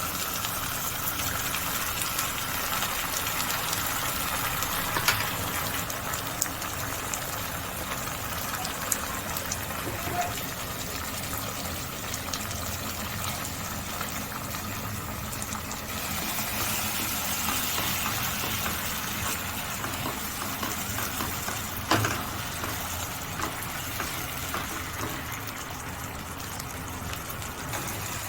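Food frying in oil in a frying pan, sizzling steadily, with a few sharp clicks, the loudest about 22 seconds in.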